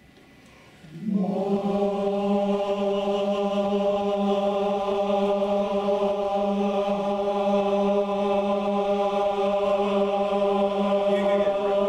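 Barbershop chorus singing the word "my" together on one steady held note as a breath and resonance exercise. It starts about a second in after a silent breath and is held for about ten seconds before cutting off near the end.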